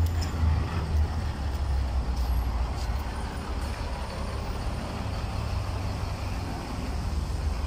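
Street traffic, with a heavy vehicle's engine rumbling close by, loudest over the first couple of seconds and then easing.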